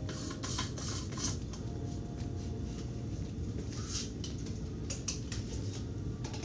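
Light plastic clicks and knocks as a personal blender cup, its blade unit screwed on, is handled, turned over and set onto the motor base, over a steady low background hum.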